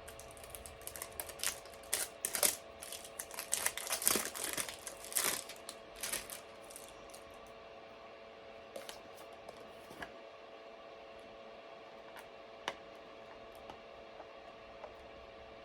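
Plastic packaging of a tub of glitter slime crackling and clicking as it is handled and opened, busy for the first six seconds or so, then only the odd click.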